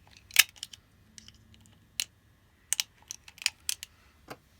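9mm cartridges being pressed one by one into a Glock 43 magazine: a series of sharp, irregular clicks, the loudest about half a second in and a quicker run of them around three seconds in.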